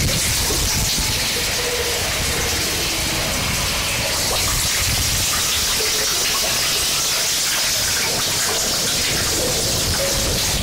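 Harsh noise music played live: a dense, steady wall of static hiss, strongest in the high range and growing brighter about four seconds in. A heavy low rumble drops away right at the start, and faint short tones flicker underneath.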